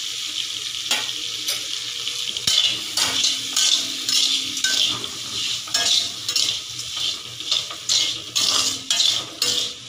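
Small onions, garlic and tomatoes sizzling in oil in a kadai. From about two and a half seconds in, a steel spatula stirs them and scrapes the pan in quick repeated strokes, about two a second.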